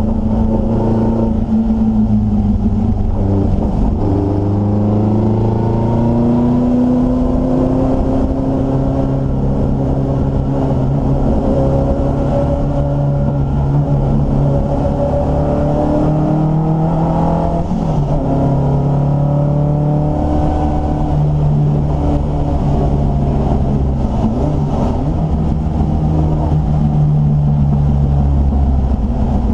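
Triumph Dolomite Sprint race car's 16-valve slant-four engine heard from inside the cabin under hard driving, its note climbing through the revs and dropping back at each gear change or lift, several times over.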